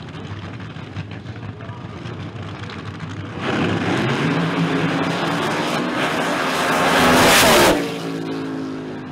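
Two funny cars at the starting line, engines running low, then launching about three and a half seconds in with a sudden loud blast of engine noise that keeps building as they run. Near the end it drops away abruptly to a lower engine note falling in pitch as the cars run away down the track.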